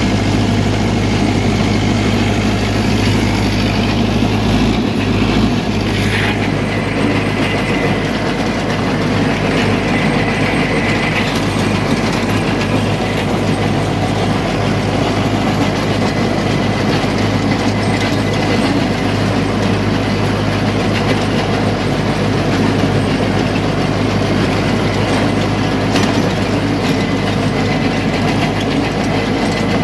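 Rakovica 60 tractor's diesel engine running steadily under load, driving a PTO-powered rotary tiller that churns through the soil; an even, unbroken drone with the tiller's rattle mixed in.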